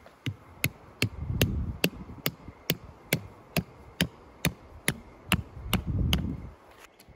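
A tent stake being driven into hard ground with a hand-held rock: about fifteen sharp, evenly spaced strikes, roughly two a second, stopping about six seconds in.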